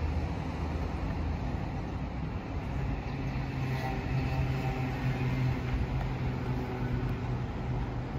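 A motor vehicle's low engine hum over steady outdoor background noise. The hum rises in pitch about three seconds in and holds there for several seconds.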